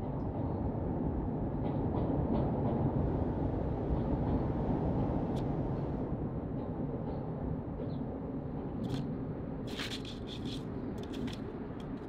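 Low rumble of city traffic that swells to a peak a few seconds in and slowly eases off, with a few short sharp clicks near the end.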